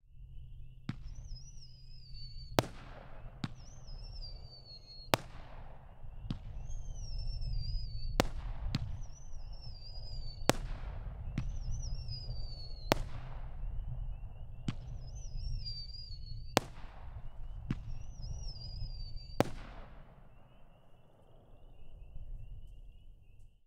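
PyroCan 'Whistling Willows' firework cake firing about fifteen shots, one every second or so. Many shots are followed by a whistle that falls in pitch, with a fainter wavering whistle underneath and a low rumble throughout. The shots thin out and the sound fades near the end.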